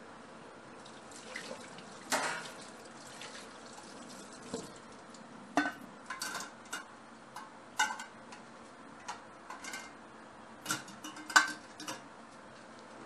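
Dishes and utensils clinking and clattering in a kitchen: a string of irregular knocks, several with a short ring, the loudest near the end.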